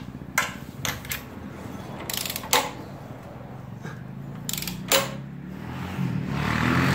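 A long-handled socket wrench on the crankshaft bolt turns a 7.3 IDI diesel's crankshaft over by hand, giving several sharp, irregularly spaced metal clicks and clanks.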